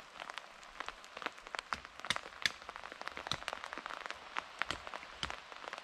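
Light rain: scattered drops landing with irregular sharp ticks over a soft hiss.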